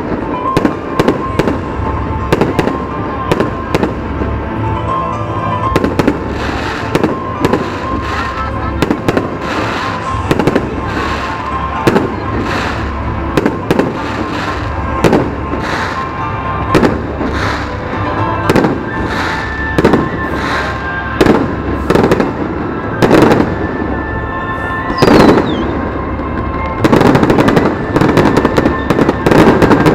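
Fireworks display: aerial shells bursting with a bang every second or so, turning into a dense, rapid barrage of bangs near the end.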